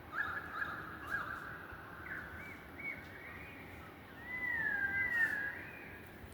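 A bird singing a run of warbling, fluting calls with gliding notes. The loudest is a long swooping whistle about four and a half seconds in.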